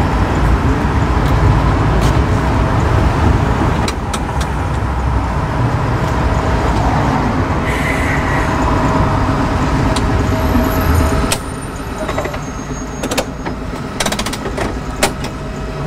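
A2 heritage tram running along the rails, heard on board as a steady low rumble. About eleven seconds in the rumble drops suddenly as the tram eases up behind a bus, and a few sharp clicks follow.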